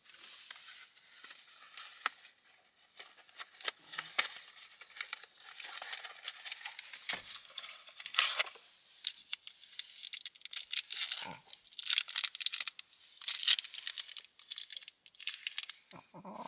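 Irregular crinkling and rustling that goes on throughout, loudest in the second half, with a few dull knocks among it.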